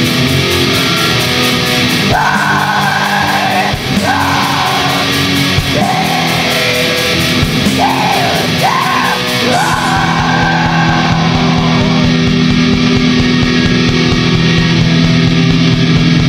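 Black metal song with distorted electric guitars and drums. Harsh, shrieked vocal lines come in about two seconds in and stop around ten seconds in, after which sustained guitar chords carry on.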